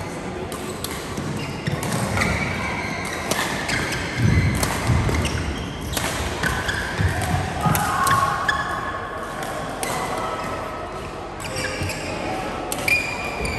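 Badminton play on an indoor court: sharp racket strikes on the shuttlecock, sneakers squeaking on the gym floor, and feet thudding on lunges, with the echo of a large hall.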